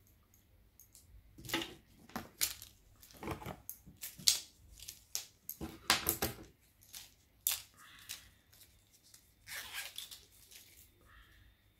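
Rustling and handling of small objects in irregular short bursts, with scrapes and crinkles: makeup items and their packaging being moved about by hand.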